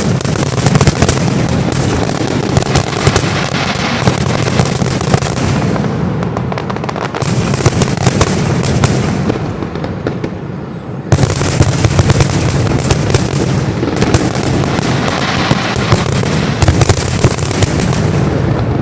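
Fireworks display with loud, rapid overlapping booms and crackling bursts, coming in waves that ease briefly and then surge again several times.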